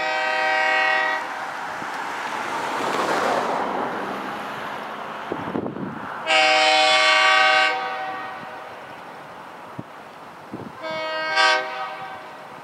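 Diesel locomotive air horn sounding three times: a blast that cuts off about a second in, a long blast just past the middle, and a shorter one near the end. Between the first two blasts a loud rushing noise from the approaching train swells and fades.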